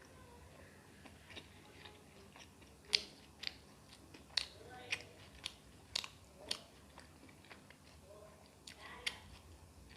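A person chewing and biting food close to the microphone: a run of about a dozen sharp, short crunchy clicks and smacks, the loudest about three seconds in.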